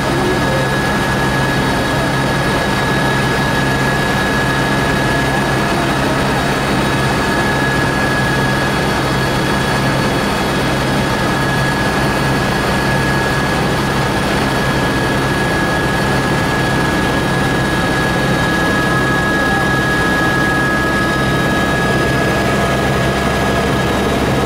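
Cabin noise of a Eurocopter AS350B Ecureuil helicopter in flight: a steady high turbine whine over a low rotor and engine drone, heard from inside the cockpit.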